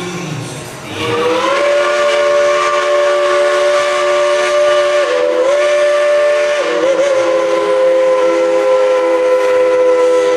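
Steam whistle of a 4-6-0 steam locomotive blowing one long blast, a chord of several notes that slides up as it starts about a second in, dips briefly twice midway and holds loud to the end.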